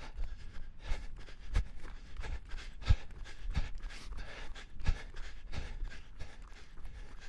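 A person panting hard while running, with steady thuds at about one and a half a second in time with the stride.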